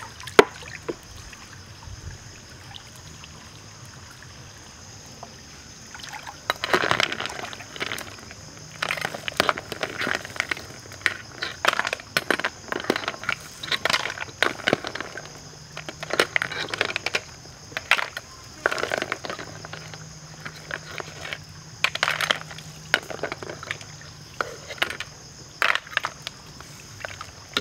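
Boiled snail shells knocking and clattering against a metal slotted ladle and wok as they are scooped out of the boiling broth, with splashes and drips of water, in many irregular knocks from about six seconds in. A steady high hiss runs underneath.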